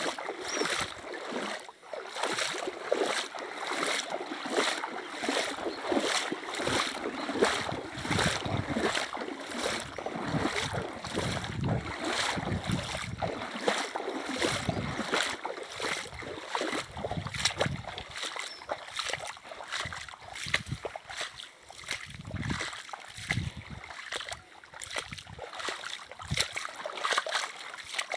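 Running river water with splashing that repeats in a steady rhythm, about one and a half splashes a second.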